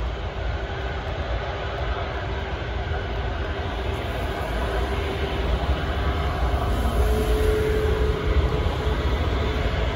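A jet airliner's engines running with a steady, loud noise as it lands and rolls out along the runway, swelling louder about halfway through.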